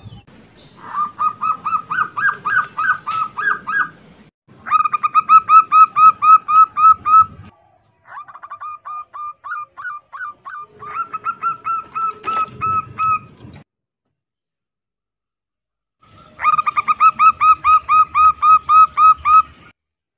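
Female zebra doves calling in heat, the call used to lure males: rapid trains of short, clipped rising notes, about five a second, in several bouts of a few seconds each, with a pause of a couple of seconds before the last bout.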